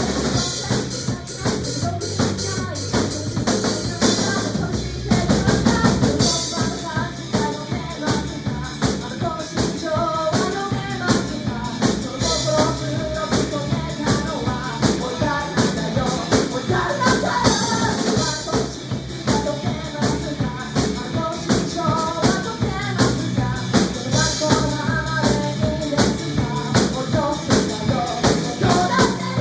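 Music with a drum kit playing a steady, busy beat of bass drum, snare and rimshots, with melodic notes above.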